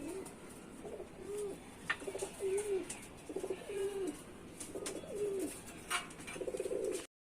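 Domestic pigeons cooing: a run of short, low coos that rise and fall, about one a second.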